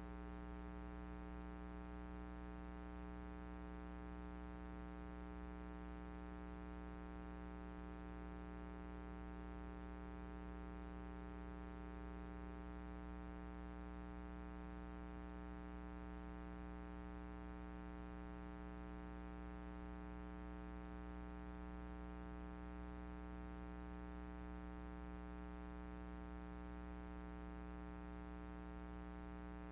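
Steady electrical hum with a buzzy ring of evenly spaced overtones, unchanging throughout, with no bowling sounds heard.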